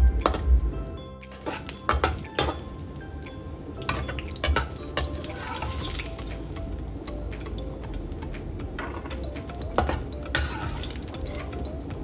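Cashew nuts frying in a pan, stirred and scooped with a metal perforated skimmer: repeated clicks and scrapes of metal against the pan over a light frying sizzle.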